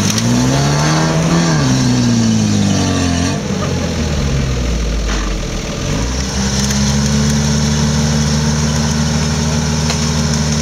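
Off-road 4x4's engine revving up and falling back, then held at a steady raised speed from about six seconds in.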